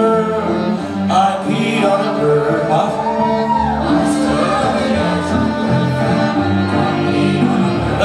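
Live band playing: a male voice singing over drums, electric guitar and cello.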